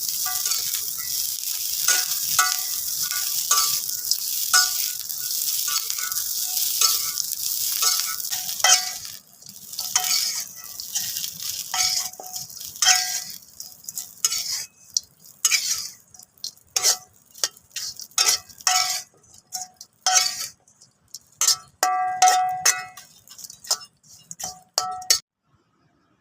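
Grasshopper fried rice (nasi goreng belalang) sizzling in a pan while a metal spatula stirs it, clinking against the pan about twice a second. About nine seconds in the sizzle dies down, leaving separate scrapes and clinks of the spatula that stop shortly before the end.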